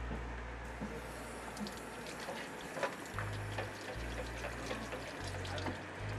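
Water running from a kitchen tap into a sink, a steady hiss that starts about half a second in, with scattered light clinks and scrapes of utensils stirring food in a stainless steel pan.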